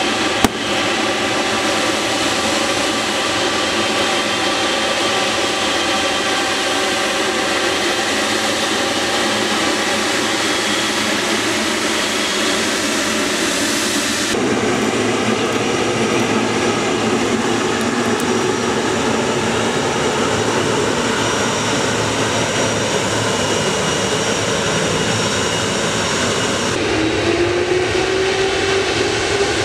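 Boeing 777-300ER's GE90 jet engines running with a steady whine and hum, several steady tones riding on the noise. Near the end a clear whine rises steadily in pitch as the engines spool up for takeoff.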